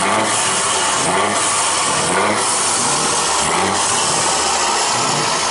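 Mercedes-Benz 1846 truck engine being revved in short blips, about one a second, under a constant loud rush of exhaust noise.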